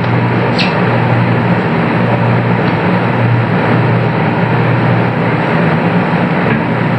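A loud, steady rushing noise with a low hum, and a brief click about half a second in.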